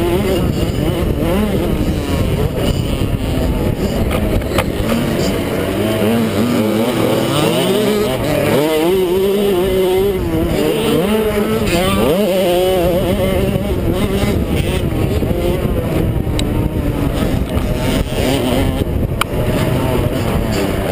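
Small youth motocross bike engine revving up and down hard through the whole stretch as the rider races over the dirt track, heard through a helmet-mounted camera with wind noise over it.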